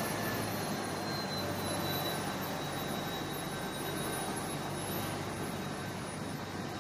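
Steady airport apron machinery noise, aircraft and ground-support equipment running: a low hum under an even rush, with a faint high whine that comes in about a second in and holds.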